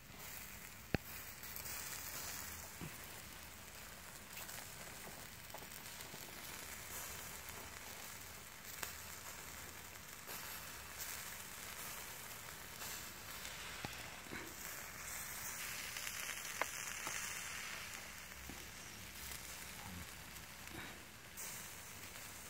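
Sausages sizzling in a wire grill basket over charcoal embers, a steady low hiss with a few sharp pops.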